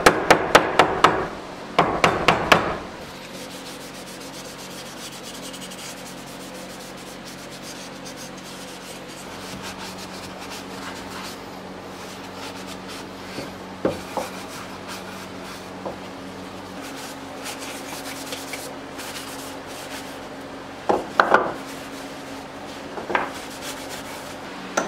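A cloth rag rubbing stain onto a small wooden box, soft wiping against the wood over a steady low hum. A quick run of sharp knocks opens it, and a few more knocks come near the end.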